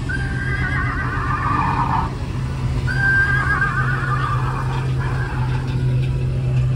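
Two horse-whinny sounds, each about two seconds long with a wavering pitch, the first falling at its end, over the steady low rumble of classic car engines pulling out slowly.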